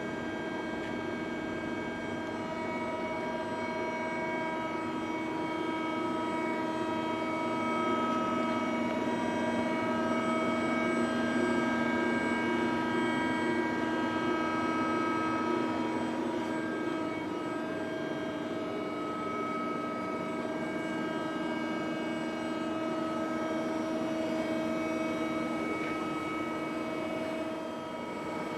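HWACHEON Cutex 160A CNC turning and milling centre running under power: a steady machine whine of several pitched tones from its drives. It gets somewhat louder for several seconds in the middle, then settles back.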